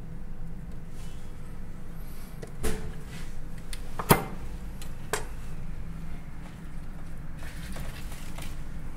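A long kitchen knife chopping through a bamboo skewer onto a wooden cutting board: three sharp knocks, the middle one loudest, over a low steady background hum.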